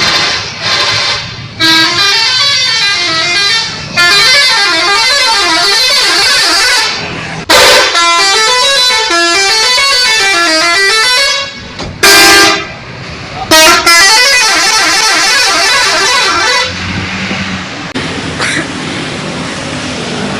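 Bus 'telolet' horns, multi-tone musical air horns, playing warbling tunes that rise and fall in pitch. There are four long phrases, with short plain blasts in between. The horns stop about two-thirds of the way in, leaving street noise.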